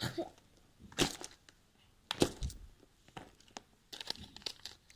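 Close handling noises: two sharp cracks, about one and two seconds in, the second the louder with a dull knock under it, then light crackling and rustling near the end.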